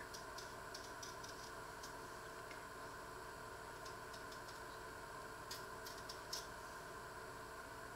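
Paring knife peeling potatoes over a metal pan: faint, irregular small clicks and scrapes, the sharpest about six seconds in, over a steady low background hum.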